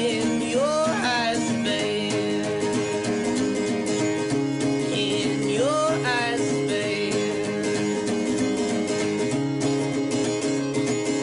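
Soundtrack song in a folk style, led by acoustic guitar, in a stretch without sung words; a gliding note rises twice, once near the start and again about halfway through.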